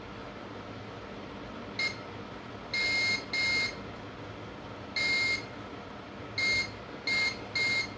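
Digital multimeter's continuity buzzer giving about seven short, irregularly spaced beeps at one steady high pitch as the probe touches points on a phone logic board. Each beep marks a near-zero-resistance path: the capacitors by the main power IC are shorted.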